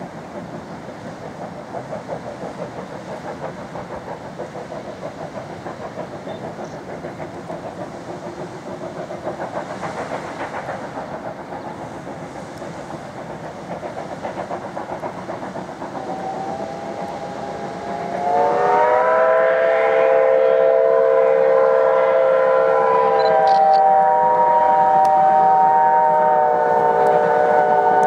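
A moving steam train runs with a steady rumble. About two-thirds of the way through, the locomotive's whistle comes in faintly, then sounds loud as a chord of several tones and holds for about ten seconds. Its pitch shifts slightly partway through.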